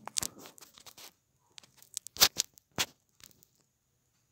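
Fingers tapping and sliding on a smartphone's touchscreen, picked up by the phone's own microphone: a string of short scraping and clicking noises, the loudest a little past two seconds in.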